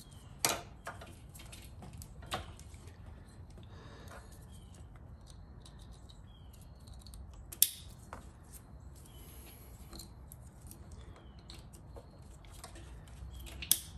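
Scattered small clicks and handling noise of plastic wiring connectors and wires being plugged together and moved, with one sharper click about halfway through.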